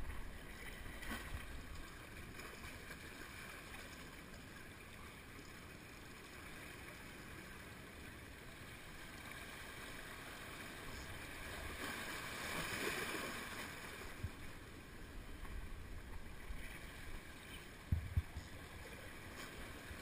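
Sea water washing and splashing against the jetty rocks, swelling about twelve seconds in, with two low thumps near the end.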